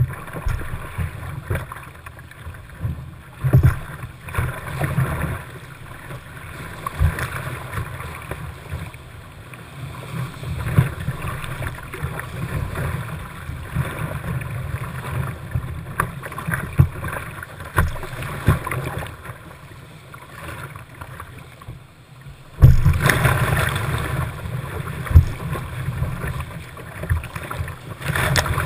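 Whitewater rushing and splashing around a kayak, close to the water, with irregular splashes and slaps from the waves and paddle strokes. About three-quarters of the way through, it turns suddenly louder as the boat runs into heavier rapids.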